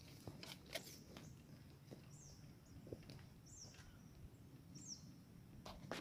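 Faint forest ambience: a small bird gives three short, high, falling call notes about a second and a half apart, over scattered light footsteps and twig snaps on the forest floor.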